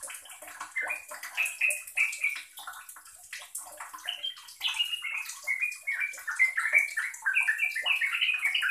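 Yellow-vented bulbul singing a fast, continuous chattering run of short chirping notes, growing denser and louder after about four seconds.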